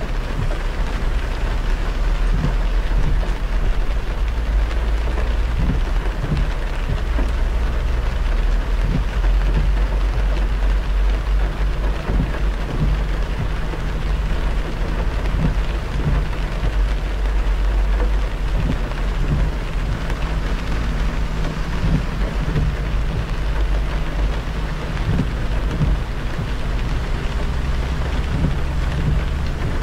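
A car driving in rain on a wet expressway: a steady deep rumble of road noise under a constant hiss of tyres on the wet road and rain on the car.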